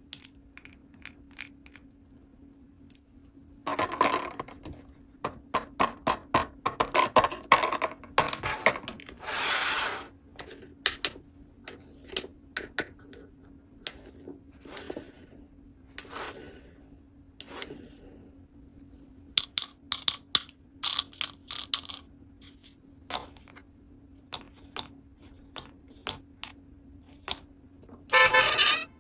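Small plastic toy pieces being handled, tapped and clicked together, with irregular sharp clicks and a few short rustling stretches, and a louder burst of clattering near the end. A faint steady hum runs underneath.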